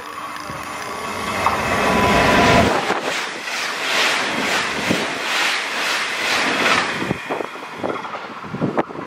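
A DSB IC3 (MF) diesel multiple unit passing through at high speed. A rising rush and rumble builds as it nears, then a rhythmic clatter of wheels at about two beats a second, which fades away as the last car clears.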